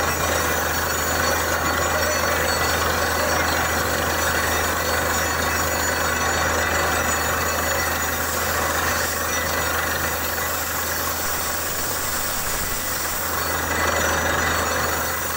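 Drilling rig running steadily, its engine giving a constant low drone under dense mechanical noise.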